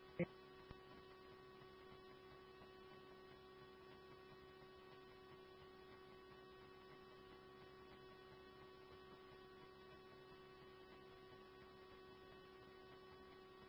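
Near silence on the radio channel between scanner transmissions: a faint steady electrical hum with a brief click just after the start.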